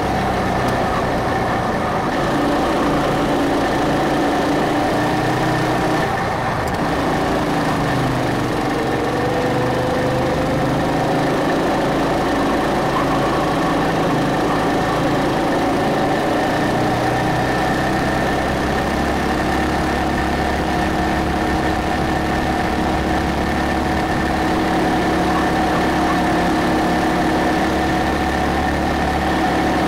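Go-kart's small petrol engine running hard as the kart drives the track, a steady drone that dips in pitch about six seconds in and then slowly climbs again.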